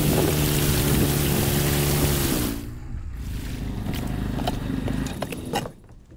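A motor engine running steadily under a loud hiss, its pitch dropping as it cuts out about two and a half seconds in. A quieter low rumble with a few sharp clicks follows.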